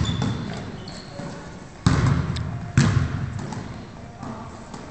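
A ball being struck in an echoing sports hall: three sharp thuds, one at the start, one just under two seconds in and one about a second later, each ringing on in the hall. Brief high squeaks, like shoes on the court floor, come in between.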